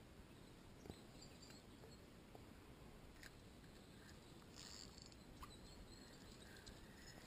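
Near silence: quiet outdoor background with a few faint, short, high chirps and ticks scattered through it.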